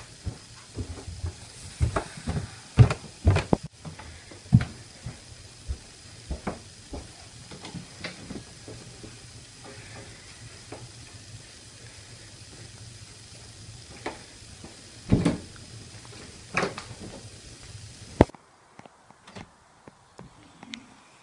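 Irregular knocks and bumps of people moving about in a hallway and closet, with door and cupboard sounds, over a steady low hum and hiss. The sharpest knocks come in the first few seconds and again about fifteen seconds in, and the hum stops abruptly about eighteen seconds in.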